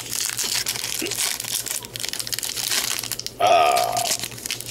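Wrapper of a 2021 Bowman baseball card pack crinkling and tearing as it is torn open by hand, with dense small crackles. A short burst of voice about three and a half seconds in.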